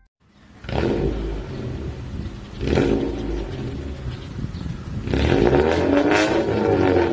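Car engine revving: it swells about a second in and again near three seconds, then holds with wavering revs from about five seconds in.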